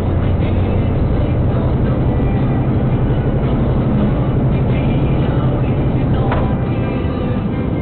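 Steady low engine drone of the vehicle carrying the dashcam, heard from inside its cab. Its pitch steps up a little near the start as the vehicle gathers speed, then holds.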